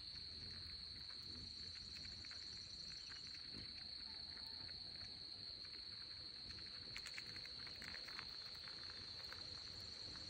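A steady high-pitched insect trill goes on throughout. Over it come faint small clicks and crunches of a chipmunk nibbling sunflower seeds from a hand, most of them about seven to eight seconds in.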